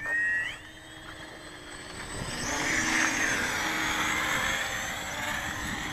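Parkzone Sukhoi 29 electric RC aerobatic plane in flight, its motor and propeller whining. The whine rises in pitch as the throttle comes up right at the start, then climbs again from about two seconds in and grows louder.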